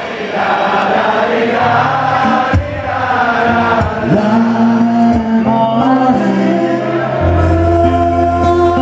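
Live band music with many voices singing together, the bass swelling louder about seven seconds in.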